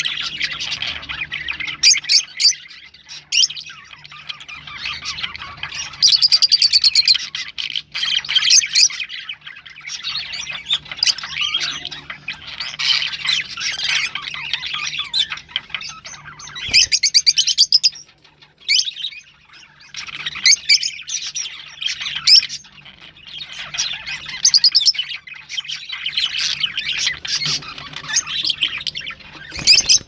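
Peach-faced lovebirds chattering and chirping without pause, high-pitched, with louder shrill screeches breaking in every few seconds.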